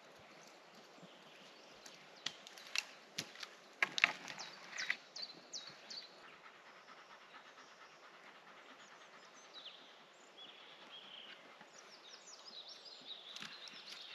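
Small birds chirping in woodland, with a run of sharp clicks and knocks about two to five seconds in, the loudest near four seconds.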